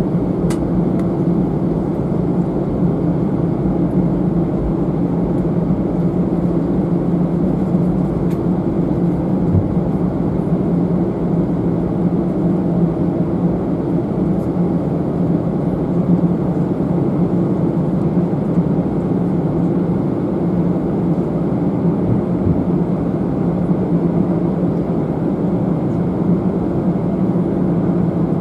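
Steady engine hum and air noise heard inside the passenger cabin of an Airbus A319-111, with a constant low drone that neither rises nor falls.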